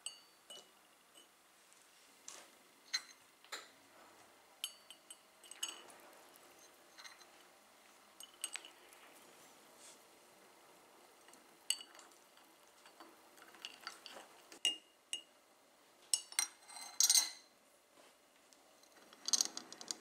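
Metal teaspoon clinking against a porcelain cup while stirring: irregular, light clinks, each with a short ring. A louder cluster of clinks and rattles comes near the end.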